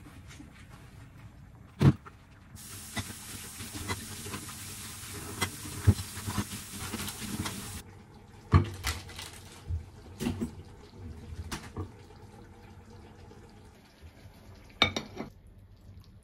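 A kitchen tap runs into the sink for about five seconds while dishes are washed, with clinks of crockery over the water. Before and after it come separate knocks and clatters of dishes and utensils, a bowl and plate being handled as curry is served.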